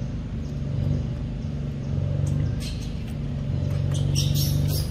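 A steady low engine hum, like a motor running close by, swelling and easing every second or so. Over it, in the second half, come short crackly clicks and wet crunches as a macaque bites into a ripe mango.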